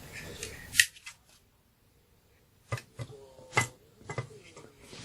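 A handheld portable fan being taken apart: a loud sharp click just under a second in, then a few separate clicks and snaps of small plastic parts being handled.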